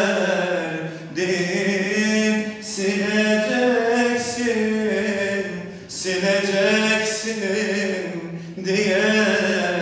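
A solo male voice singing a Turkish art song unaccompanied, with long held notes that turn and bend in pitch, broken by a few short pauses for breath.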